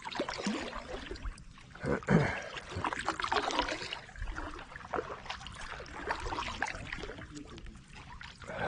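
Kayak paddling: the paddle blade dipping into the water, with irregular splashing and dripping.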